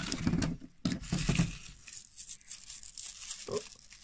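Hands tearing open and crinkling a small toy wrapper. The rustling is loudest in the first second and a half, then goes on as softer crinkling.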